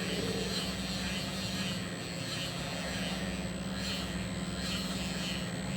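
Machinery running steadily, a constant low hum under an even mechanical noise.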